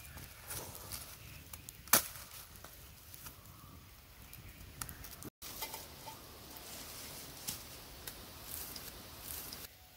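A blade chopping into the charred husk of a fire-roasted tender coconut to break it open: one sharp chop about two seconds in, then lighter knocks and clicks.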